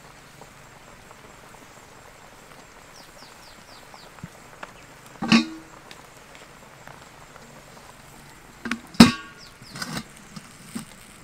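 Metal bowl and steel wok clanking together as the bowl is set upside down over the wok as a lid: a knock about five seconds in, then a louder clank about nine seconds in that rings briefly, followed by a few small knocks. Underneath, the broth in the wok simmers faintly.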